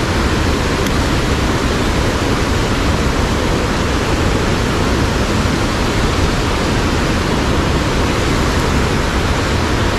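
Rushing water of a mountain headwater stream: a loud, steady, even wash of noise.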